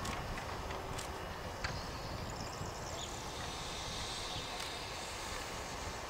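Narrow-gauge steam locomotive standing with its train, giving a steady low rumble with no exhaust beats. A few faint clicks and a couple of short high chirps sit above it.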